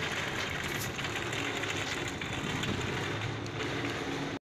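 Steady hum of a vehicle engine running, mixed with outdoor background noise. It cuts off abruptly at the end.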